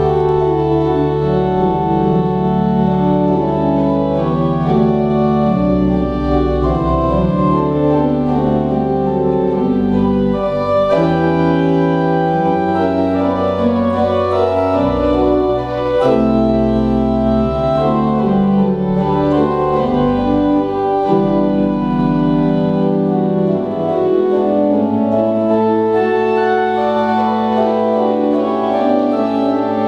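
Church organ playing slow, sustained chords, the held notes changing every second or two. Deep bass notes sound under the chords until about three-quarters of the way through, then drop out.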